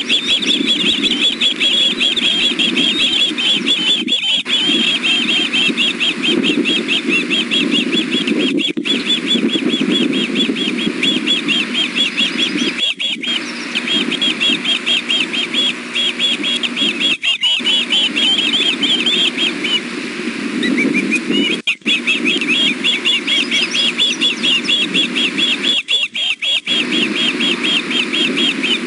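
Juvenile ospreys food-begging: a rapid, continuous run of high, shrill chirps from several young birds calling at once, cut by a few brief dropouts. A steady low rumble runs underneath.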